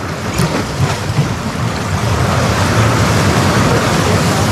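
Sea surf washing in against the shore, with wind on the microphone, the wash swelling louder about halfway through.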